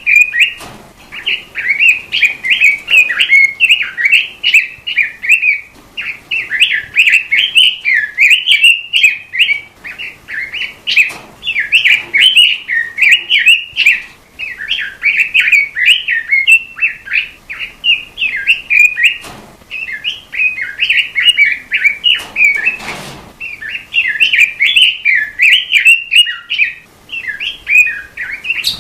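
A robin, as the songbird is called in Indonesia, singing a continuous run of rapid, warbling phrases, broken by brief pauses every few seconds. A few faint clicks sound among the song.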